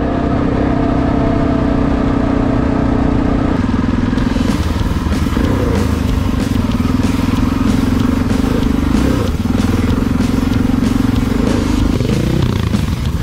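Yamaha Ténéré adventure motorcycle's engine running under way on a dirt track, its pitch dropping and rising with throttle and gear changes about 5 seconds in and again near the end. The bike's bodywork rattles and knocks over the rough ground.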